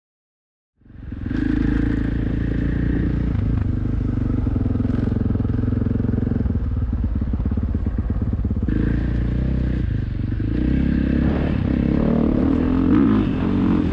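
Motocross bike engine heard close up from a helmet-mounted camera while riding a dirt track. It starts suddenly about a second in.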